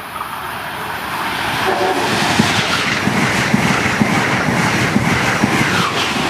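Amtrak Acela Express high-speed electric train running through the station at speed. The rush of its approach builds over the first two seconds or so, then holds as a steady loud noise of wheels on rail and rushing air, with rapid clicking as the cars pass close by.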